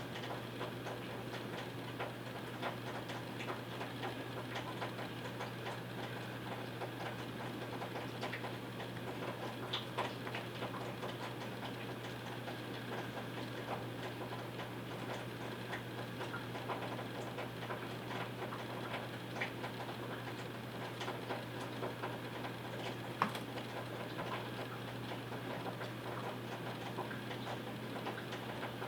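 Scattered small clicks and taps over a steady low hum, with one sharper click about 23 seconds in.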